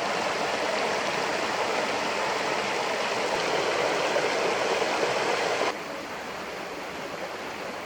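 Stream water flowing steadily, a dense rushing wash that cuts off abruptly about three-quarters of the way through to a quieter flowing background.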